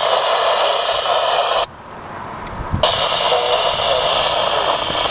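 Railroad radio scanner with its squelch open, giving a loud hiss of static with faint garbled traces in it. The static cuts off abruptly about a second and a half in and snaps back on about a second later.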